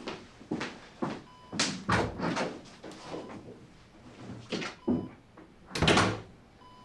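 A door being opened and closed amid a series of short knocks and thuds, the loudest about six seconds in.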